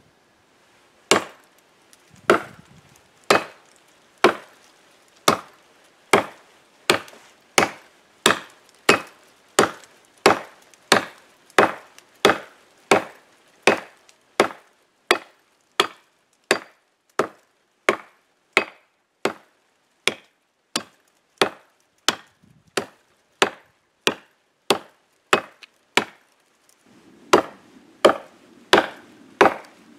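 Condor Bush Knife, a heavy billhook-style blade, chopping into a thick tree limb: a steady run of sharp chops, about three every two seconds. A rougher, noisier sound joins the last few strokes.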